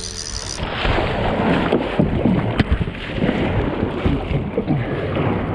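Kayak being paddled: paddle splashing and water sloshing and dripping around the hull, starting about half a second in, with one sharp knock about two and a half seconds in.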